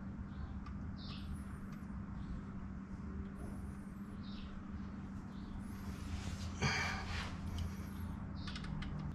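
Thread tap being turned by hand into a freshly drilled hole in a car's oil pan, giving short high squeaks as it cuts, with one brief louder rasp about two-thirds of the way through.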